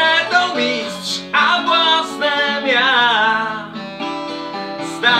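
Two acoustic guitars, a nylon-string classical and a steel-string, strummed together in a slow ballad. A man's voice sings long held notes over them near the start and again in the middle.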